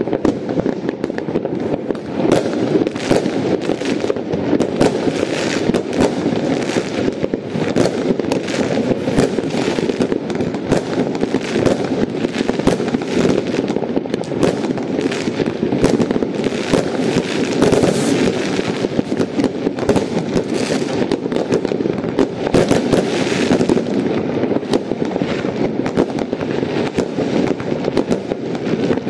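New Year's Eve consumer fireworks and firecrackers going off at many places across a town at once: a dense, unbroken stream of crackling and bangs that never pauses.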